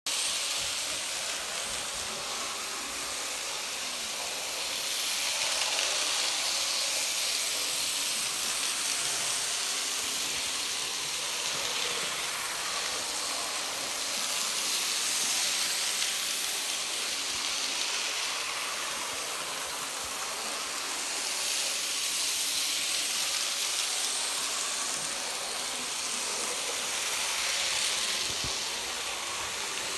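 N scale model steam locomotives with smoke units running with their passenger cars on a layout: a steady high hiss that swells and fades every several seconds as the trains come and go.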